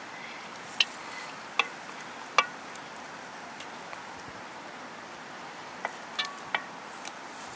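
Raw lamb pieces being laid by hand onto stones in a metal cauldron: a handful of sharp knocks and clicks as pieces and stones touch, one near the end with a brief metallic ring, over a steady hiss.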